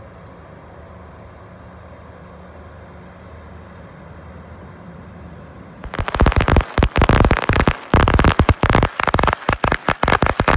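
A low, steady hum from the approaching ferry's engines, then about six seconds in a long string of firecrackers goes off all at once, a rapid, dense crackle of loud bangs that drowns out everything else.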